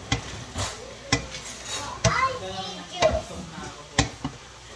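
Wooden spatulas stirring and tossing beef and vegetable chop suey in a wok, with sharp knocks against the pan roughly once a second over a faint sizzle.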